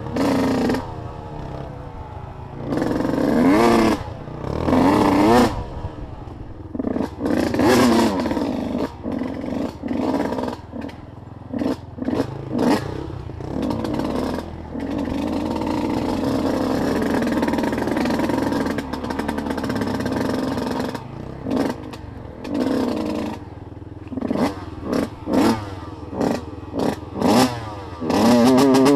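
Off-road vehicle engine revving up and down in repeated short bursts, with a steadier run in the middle, and clattering knocks from the vehicle over rough ground.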